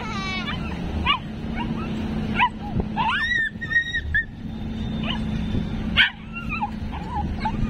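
Two dogs scuffling, with short high yips and whimpers and a longer whine about three seconds in, over a steady low hum.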